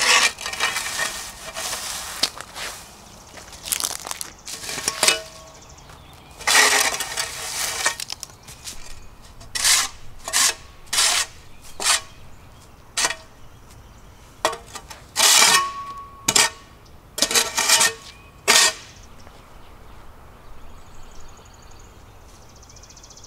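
Shovel blade scraping across concrete paver blocks in a series of short, irregular strokes, clearing dirt off a hive pad. The strokes stop a few seconds before the end.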